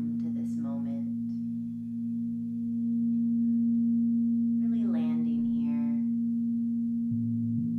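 Crystal singing bowls ringing in several steady held tones that overlap into one sustained hum, swelling louder about three seconds in.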